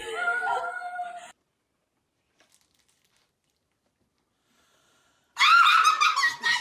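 A short voice cuts off abruptly, followed by about four seconds of dead silence. Near the end, a puppy starts whining loudly with high-pitched, rising and falling cries.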